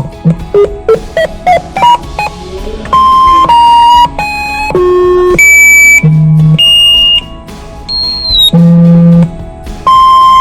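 Synthesized emergency-alert alarm tones: a rapid run of short beeps at changing pitches, then a string of loud held electronic tones about half a second each, jumping between high and low notes, with a brief quieter gap near the middle.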